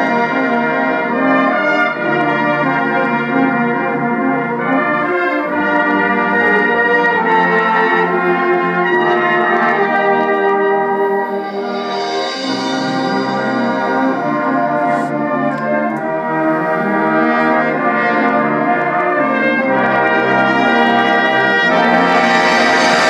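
Brass ensemble playing slow, sustained chords that change every second or two, growing brighter and a little louder near the end.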